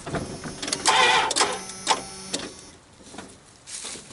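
A van with a dead battery, its key turned: a few knocks, then a rapid mechanical chatter for about a second before it stops, typical of a starter solenoid clicking on too little battery power while the engine does not crank.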